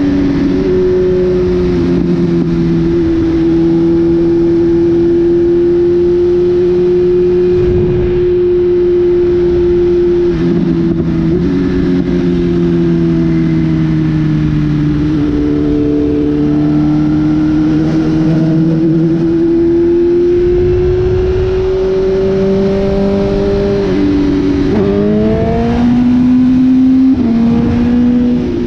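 BMW S1000RR's inline-four engine running at a steady highway cruise, its pitch drifting slowly, over a rush of wind. About four seconds before the end the pitch drops and then climbs quickly as the bike accelerates.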